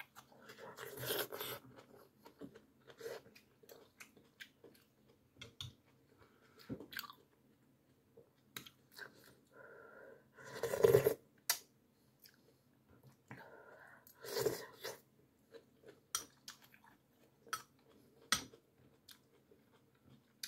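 A person eating close to the microphone: chewing and crunchy bites, with many small mouth clicks and a few louder bites spaced several seconds apart.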